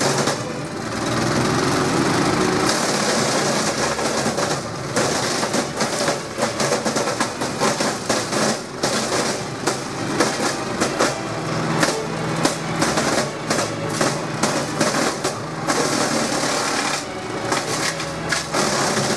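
FBC CIP 10 wood chipper, driven by its 13 hp Honda petrol engine, running under load as branches are fed in. The engine hums steadily under dense, irregular cracking and snapping of wood being chopped.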